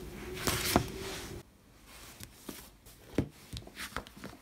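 Paperback pages being turned with a brief papery swish over a steady low hum; after a sudden cut about a second and a half in, soft taps and rustles of paperback books being handled on a desk.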